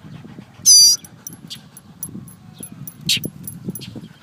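Fledgling bird begging to be fed: one loud, shrill call about a second in, with faint high chirps after it.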